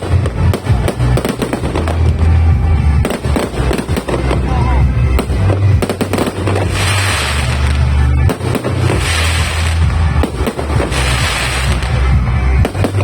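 Rapid, continuous fireworks barrage from a multi-shot cake: dense popping and booming launches and bursts, with waves of crackling about every two seconds in the second half, over music.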